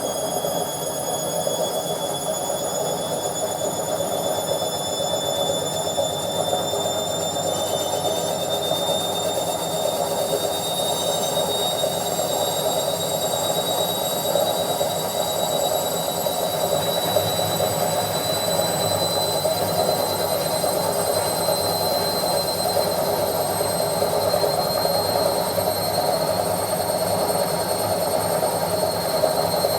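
Washing machine on its spin cycle: a steady rushing hum from the spinning drum, with a high motor whine that slowly rises in pitch as the drum speeds up.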